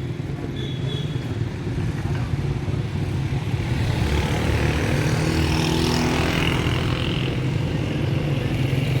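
A motor vehicle's engine running nearby over street noise, growing louder, with a steady engine hum coming in about halfway through.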